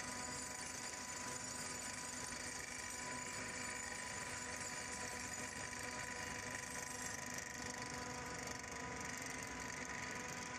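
Bruce SGV-200 hydraulic vibratory pile hammer running on a steel sheet pile: a steady, even machine noise with no let-up.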